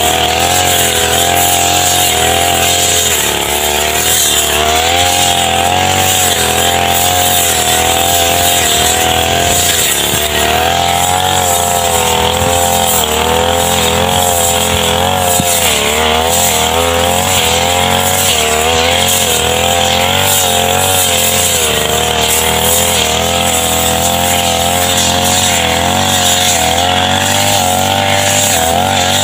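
Backpack petrol brush cutter running at high revs. Its engine note wavers and dips briefly every few seconds as the cutting head bites into tall grass.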